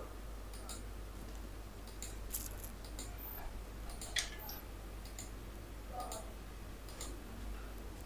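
Several faint computer mouse clicks, irregularly spaced, over a steady low hum.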